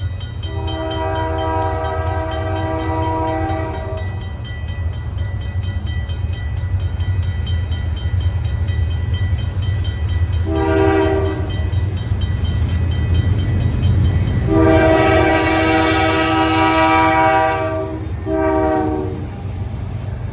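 A Nathan K3L five-chime air horn on a CN GE C44-9W locomotive sounds for a level crossing in four blasts: long, short, long, short. Under it runs the steady low rumble of the diesel locomotives. A mechanical crossing bell rings steadily in the background.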